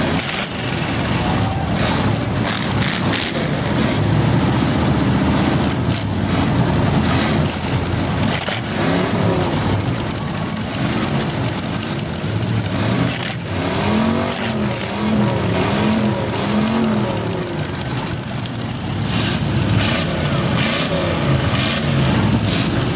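Engines of several full-size demolition derby cars running together at idle, with one revved up and down four times in quick succession in the middle.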